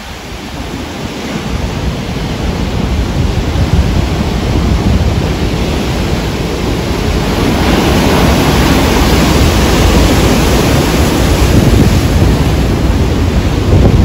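Heavy surf from a rough sea: large waves breaking and churning into foam close by, a dense steady rush with a low rumble. It swells louder about halfway through as a big wave breaks, with a surge right at the end, and wind buffets the microphone.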